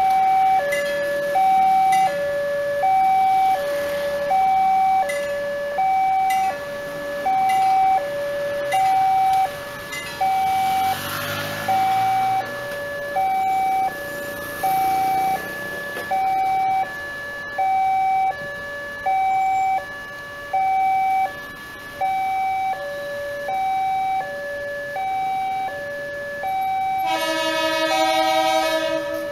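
Railway level-crossing warning alarm sounding a two-note electronic chime, a high and a low note alternating about every 0.6 s, warning of an approaching train as the barrier closes. Near the end a loud horn sounds for about two seconds over it.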